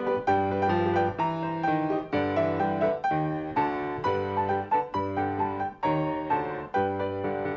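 Solo piano music: a tune of quickly struck notes over a regular pattern of low bass notes and chords.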